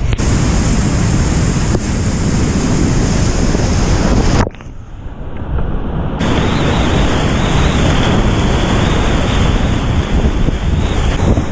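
Whitewater rapids rushing and splashing loudly around a kayak, close on the microphone. A few seconds in, the sound suddenly drops and goes muffled for about a second and a half, then comes back full.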